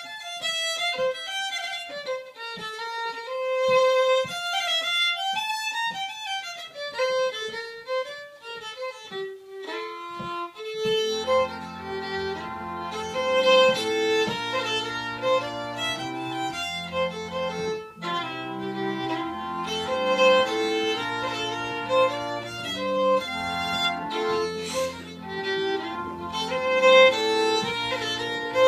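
Fiddle playing a Swedish polska melody alone for about the first eleven seconds, then a reed organ (pump organ) comes in underneath with sustained held chords as the two play on together.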